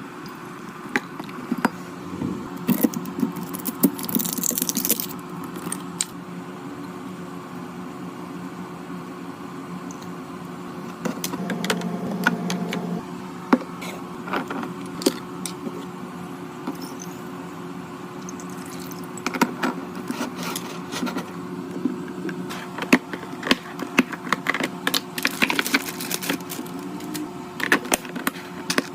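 Food and drink containers being handled and set into a refrigerator: irregular clicks, taps and clinks of plastic and glass, busiest in two stretches, over a steady hum.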